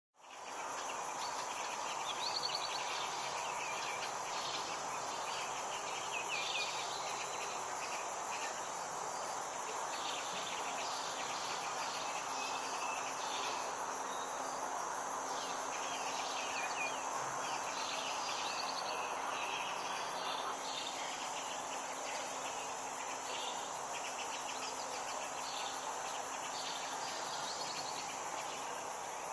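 A chorus of insects chirping: a continuous high-pitched drone with many short, rapid trills repeating over it.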